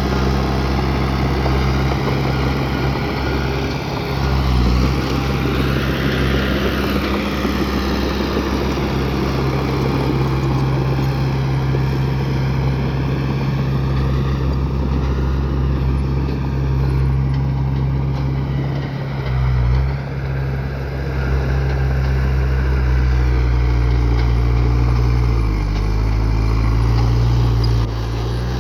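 A bulldozer's diesel engine running steadily under load. Its pitch dips briefly about four, nineteen and twenty-six seconds in.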